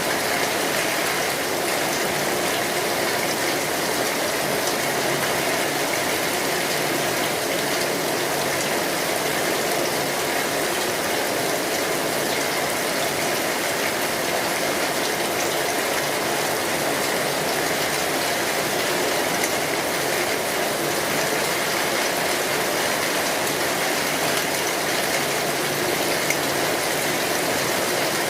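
Heavy rain falling steadily on a metal roof, a dense, even patter that keeps up without a break.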